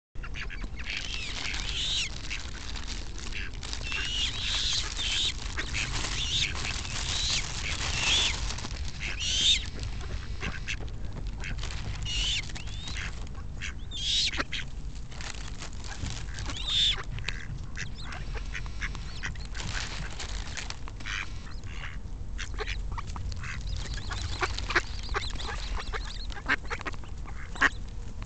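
Eurasian coots calling and mallards quacking. Short, sharp, high calls come in clusters through the first half or so, then thin out into scattered brief clicks, over a steady low rumble.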